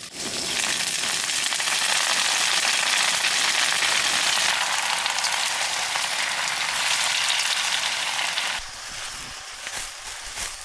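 Vegetables stir-frying in hot oil in a pan over a high flame: a loud, steady sizzle that swells just after the start and drops off sharply about eight and a half seconds in.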